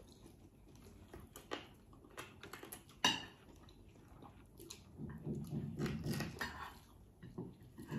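Close-up eating sounds: chewing and biting, with scattered light clicks and taps of dishes, one sharper click about three seconds in. A low, muffled pulsing sound follows for about two seconds.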